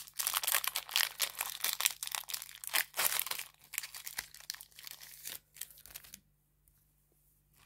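A trading card pack's wrapper being torn open and crinkled by hand. The crackling tearing runs in quick, irregular bursts and stops a little after six seconds in.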